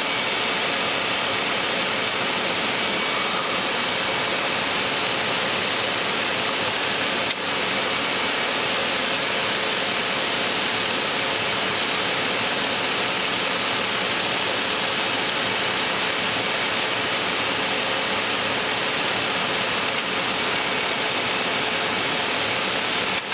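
Steady cockpit noise of an Embraer Legacy 600 jet on short final with flaps at 45: a constant rushing hiss of airflow and engine noise, with a faint steady tone in it and a brief dip about seven seconds in.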